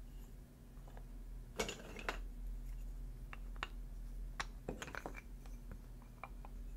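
Thin wooden KEVA planks being set down one by one on top of other planks, giving light wood-on-wood clicks and taps, with a few louder knocks about one and a half seconds in and again around five seconds.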